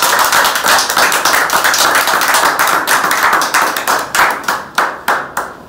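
A small group of people applauding, dense hand clapping that thins out and fades near the end.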